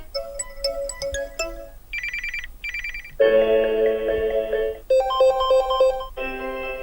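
Samsung Galaxy Tab S8 Ultra's built-in alarm tones previewed one after another: short melodic tones, each cut off after a second or two for the next, including a pair of electronic beeps about two seconds in.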